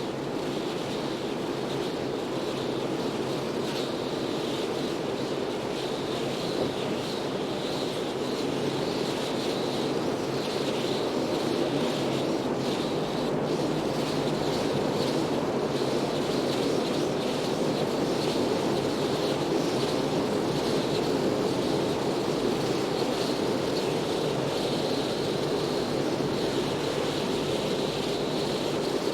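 Steady wind and road noise of a car driving in windy weather, the higher hiss of the wind swelling and easing in gusts.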